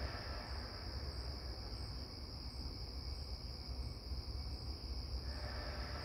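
Steady high-pitched chorus of night insects, over a low background rumble.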